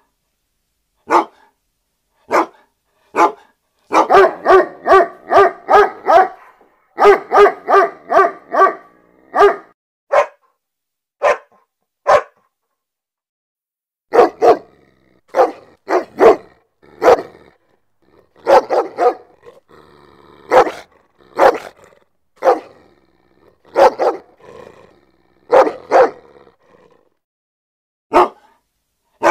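A dog barking, first in single barks about a second apart, then in quick runs of several barks a second from about four to nine seconds in. After a pause of about two seconds the barking resumes steadily, and one last bark comes near the end.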